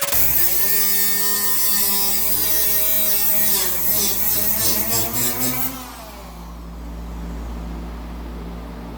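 Small cutoff wheel slicing through the sheet metal of a truck's rusted cab corner, a harsh hissing cut whose pitch wavers as it loads and frees up. About six seconds in the cutting stops and a quieter steady hum remains.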